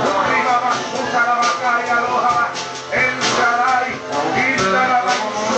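Live church worship music with guitar and frequent percussive hits, with voices singing or praying over it.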